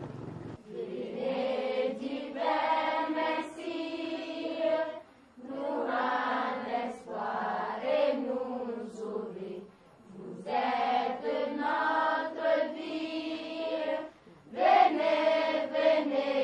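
Voices chanting in long, held phrases of about four seconds each, four phrases with short breaths between them.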